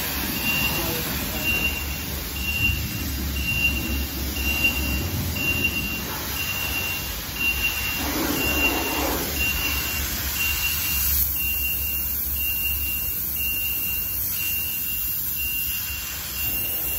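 Self-service car wash pressure wand spraying water against a car's side and wheels: a steady hiss over a low pump hum. A high beep repeats at an even pace throughout.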